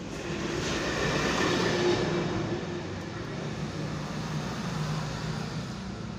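Engine rumble of a passing motor vehicle, swelling about a second or two in and then slowly fading.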